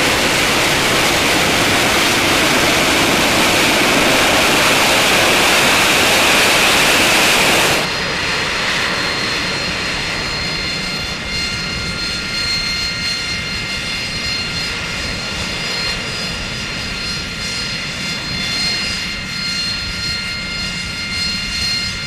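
AV-8B Harrier's Pegasus vectored-thrust jet engine in the hover: a loud, steady jet roar that drops abruptly about eight seconds in. What follows is a quieter roar with a steady, multi-toned high whine as the Harrier hovers over the ship's deck.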